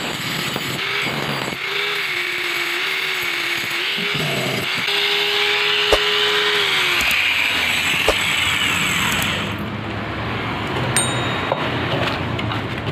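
Handheld angle grinder with an abrasive disc grinding a brass propeller blade, its motor pitch dipping and recovering as it bites. About seven seconds in the motor is switched off and winds down, leaving a low rumble, with a short high ding near the end.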